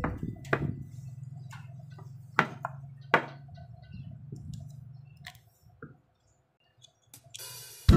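A few sharp clicks and taps of small screws and plastic trim parts being handled while an e-bike's seat cover is refitted, spaced a second or more apart. A short burst of hiss comes just before the end.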